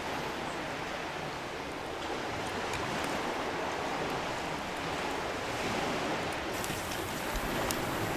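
Steady wash of ocean surf. About two-thirds of the way in, sharp crackles of a small wood fire burning in a compact stove begin over it.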